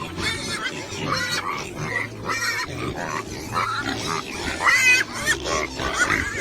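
Pig grunting and oinking in short calls in quick succession, with a higher-pitched call about five seconds in.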